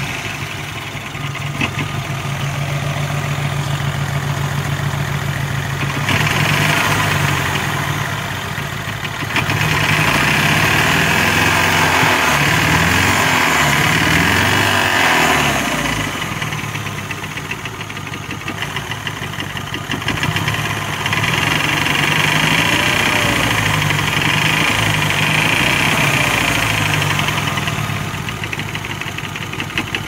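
BMW 116i's N13 1.6-litre turbo four-cylinder engine running with a steady knock from the bottom end, the engine speed raised and let fall several times. The knock comes from a cracked crankshaft and showed only once the engine was warm.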